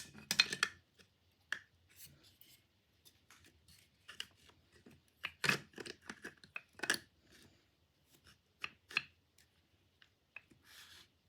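Irregular clicks, taps and short scrapes of a Stanley corrugated hand plane being handled, its blade-adjustment parts worked by hand. A burst of clicks comes right at the start, and single louder clicks follow now and then.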